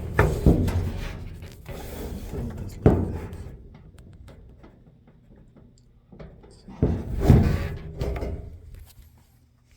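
Clunks and rattles of a Samsung clothes dryer's metal parts being handled as it is taken apart. The loudest bursts come near the start, about three seconds in, and again around seven seconds in.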